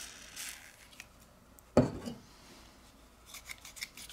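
Small metal pry tool scraping against a smartphone's frame, then a single sharp knock a little under two seconds in. Near the end comes a quick run of small scratching clicks, about four or five a second, as fingers pick at the edge of the battery.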